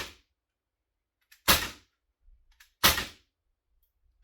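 Crosman Mako CM9B CO2 BB pistol firing repeatedly, a sharp shot about every second and a half, each with a faint click just before it.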